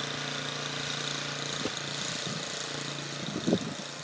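An engine running steadily with a low hum that eases off near the end, with a few short knocks about three and a half seconds in.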